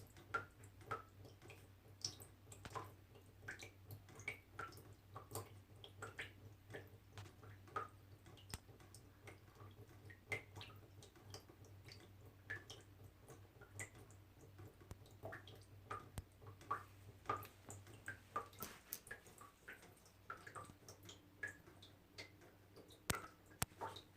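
Small water droplets dripping, each drop a short, sharp plink, a few drops a second at irregular spacing, over a faint steady low hum.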